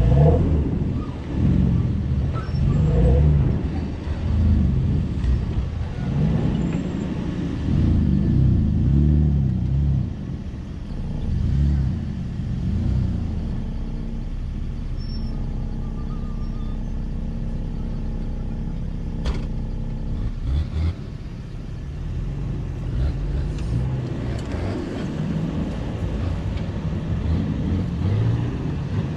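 Toyota FJ Cruiser's 4.0-litre V6 engine working at low speed over rough off-road ground, the revs rising and falling with the throttle, then holding a steady note for several seconds in the middle. A single sharp knock comes about two-thirds of the way through.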